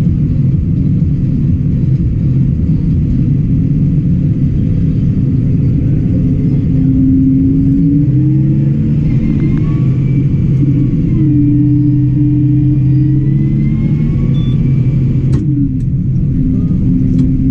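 New Holland tractor engine running as it drives along, heard from inside the cab. The engine's pitch steps up and down several times as it changes speed, and there is a sharp click about fifteen seconds in.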